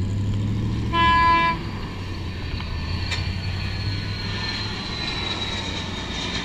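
Airport ramp noise: a steady low engine hum, with a short horn toot about a second in, and a faint high jet-engine whine that slowly falls in pitch as a jet climbs away after takeoff.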